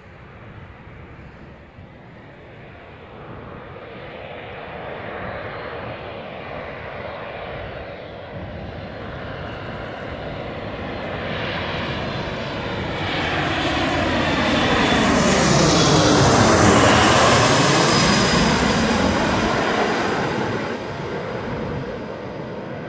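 Avro RJ85's four turbofan engines on landing approach, growing steadily louder as the jet comes in low and passes overhead. The sound peaks about two-thirds of the way through, with a high whine and a pitch that sweeps up and then down as it passes, then fades as it heads on toward the runway.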